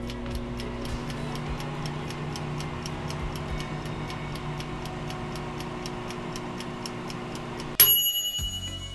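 Small electric toaster oven running with a low hum while its wind-up timer ticks fast and steadily. Near the end the timer bell dings once, loudly, and rings away: the bake is done.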